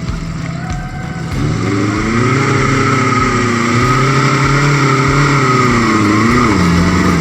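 Off-road Jeep engine revving up about a second in and held at high revs under load, its pitch wavering, then easing back near the end.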